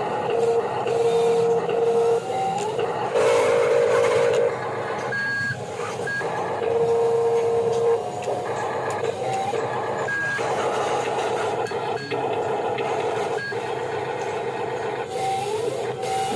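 Radio-controlled construction machines running, their motors giving a steady whir, with repeated electronic beeps and tones, each about a second long, like the reversing beeps of a model's sound module.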